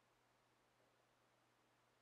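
Near silence: faint room tone with a very low steady hum.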